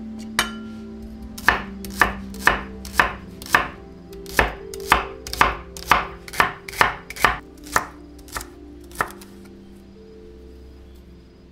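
Chef's knife slicing celery stalks on a wooden cutting board: a single chop, then a steady run of about fifteen chops at roughly two a second that stops about nine seconds in.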